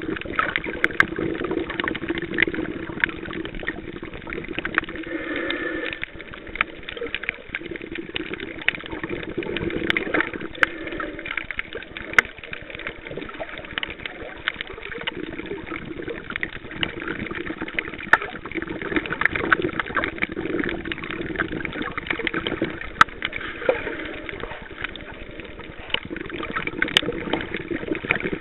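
Underwater sound picked up through a camcorder's underwater housing: a steady muffled wash of water noise with frequent sharp clicks and crackles.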